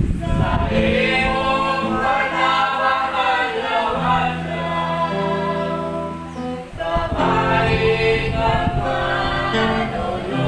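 A group of voices singing a religious song together, with long held notes. The singing breaks off briefly about two-thirds of the way through, then starts again.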